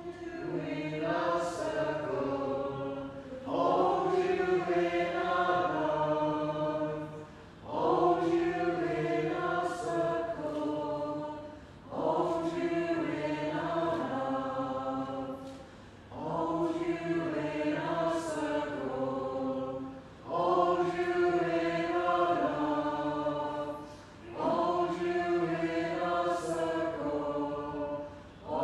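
Community choir of men's and women's voices singing in harmony. The singing comes in phrases of about four seconds, each followed by a short breath.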